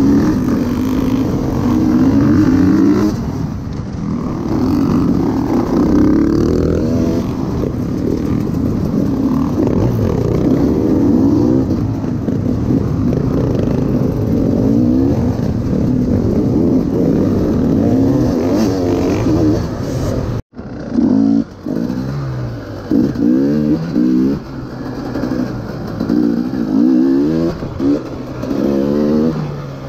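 KTM EXC 300 TPI two-stroke enduro engine revving hard and shifting, its pitch repeatedly climbing and dropping back as it is ridden flat out off the race start. The sound cuts out for an instant about two-thirds of the way through.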